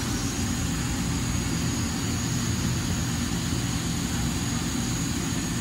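Steady machine-shop background noise: a low mechanical hum under an even hiss, unchanging throughout.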